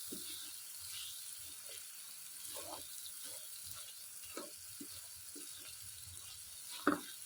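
Onion, tomato and spice masala frying in a pan, sizzling faintly with scattered small pops and clicks, and one sharper knock near the end.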